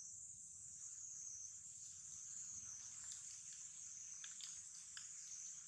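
A faint, steady high-pitched insect drone of a tropical forest, with a few faint soft ticks in the second half.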